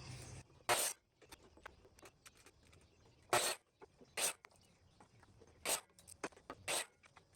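Light, sharp knocks and taps, about five of them spread over several seconds, with faint scraping and ticking between: wood pieces being handled and set down at the bench. No saw is running.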